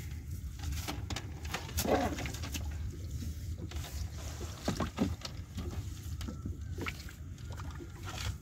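A fishing net being hauled hand over hand over the side of a small boat: water splashing and dripping, with scattered knocks and rattles of net and hull, the loudest about two and five seconds in. A steady low hum runs underneath.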